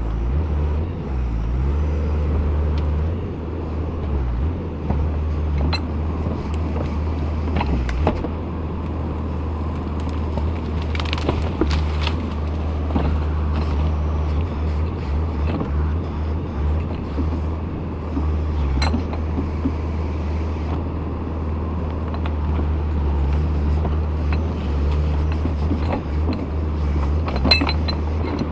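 JCB 4CX backhoe loader's diesel engine running steadily while it digs, with scattered sharp knocks from the working backhoe arm and bucket.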